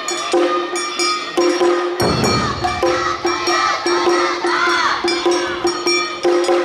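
Awa-odori festival music played live: a small hand gong (kane) struck in a quick, even rhythm, with drums joining about two seconds in and a high melody line over it.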